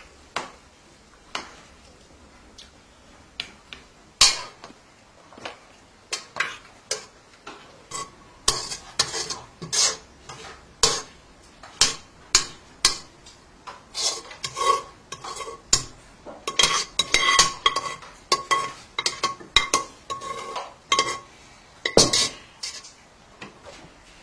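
A metal spoon clinking and scraping against metal cookware: separate knocks about once a second at first, then a quick run of clinks through the second half, some of them ringing briefly.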